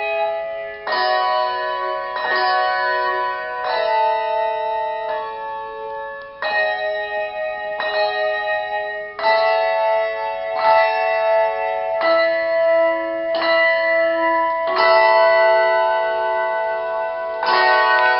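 Handbells ringing a slow tune in chords: several bells struck together about every second and a half, each chord ringing on into the next, with one longer held chord near the end.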